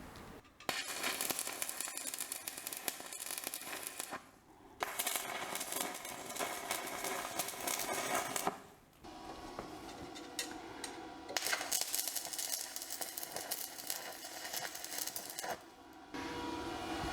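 Electric arc welding on steel angle iron: a dense, sputtering crackle in four runs of about three to four seconds each, with brief pauses between them.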